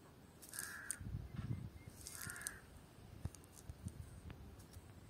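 A crow cawing twice, about a second and a half apart, over the soft rustle and clicks of a cast net being handled on grass.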